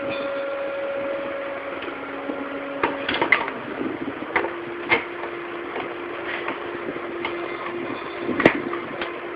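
Scattered knocks and clicks as a yellow plastic handle grip is worked onto the black pipe of a drum seeder's pull handle, the sharpest knock near the end. A steady hum runs underneath and shifts pitch about three seconds in.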